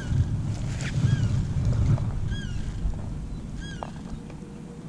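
Low wind rumble on the microphone, with a bird repeating a short arched chirp about every second and a quarter and a few light knocks.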